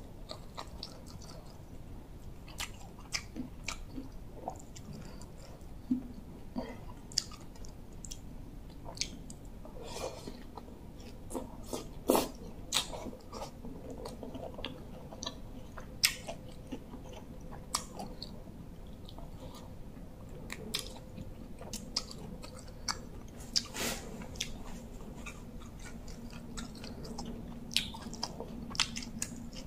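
A person chewing bamboo shoots and leafy greens with the mouth open: wet chewing and smacking, with many short sharp mouth clicks and crunches.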